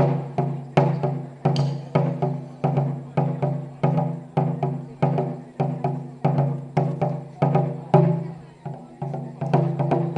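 Japanese taiko drums beaten in a steady, driving rhythm, about two to three strokes a second, each stroke ringing deep and dying away before the next. A heavier accented stroke lands about eight seconds in.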